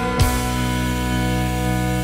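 A live band's music: a last beat lands just after the start, then the band holds a sustained chord that rings on steadily.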